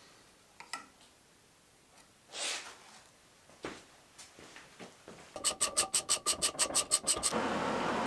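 Metal tools and clamps being handled on a motor shaft: scattered light clicks and a brief brushing sound, then a fast, even rattle of about seven clicks a second for two seconds, giving way near the end to a steady, louder noise.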